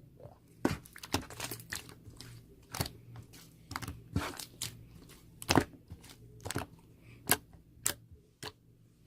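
A run of irregular sharp clicks and taps, about fifteen in all, over a faint steady low hum.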